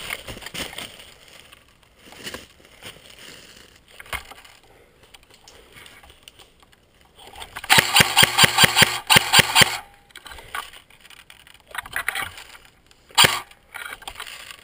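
Airsoft gun firing a rapid burst of about a dozen shots over roughly two seconds, with a few single snaps and knocks scattered before and after.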